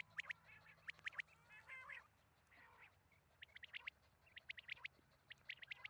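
Quail calling: short, sharp chirps in quick clusters of three to six, with a few buzzier chattering calls about a second and a half in.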